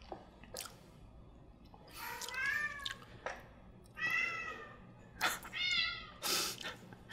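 A cat meowing three times, each meow under a second long with a pitch that bends and falls, with a few light clicks in between.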